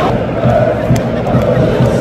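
Large football stadium crowd chanting and singing in unison, loud and sustained, over a steady low pulse.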